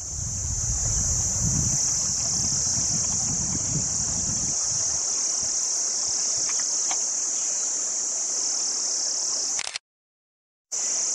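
Forest insects buzzing in a steady, high-pitched chorus, with a low rumble under the first few seconds. The buzz breaks off into silence for about a second near the end.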